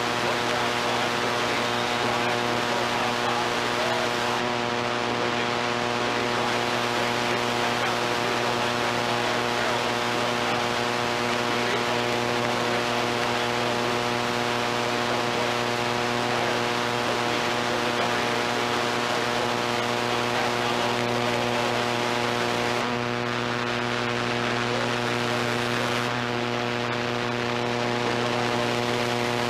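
Steady electrical hum, a buzz made of many evenly spaced tones, over constant hiss; no game sound stands out.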